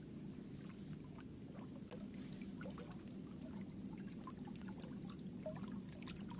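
Lake water lapping faintly among shoreline rocks, with small gurgles and trickles, over a low steady rumble.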